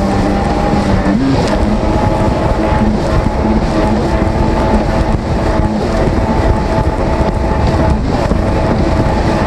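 Jet ski engine running at speed, its pitch rising about a second in and then holding steady, with wind buffeting the microphone and water rushing past the hull.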